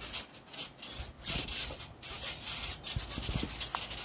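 Rough, rasping noise of wind on the microphone, with a few dull thumps of children landing on a trampoline mat.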